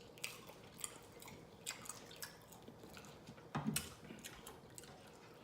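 Close-miked mouth eating sounds: a person chewing with wet lip-smacking clicks, scattered through, with a louder cluster about three and a half seconds in.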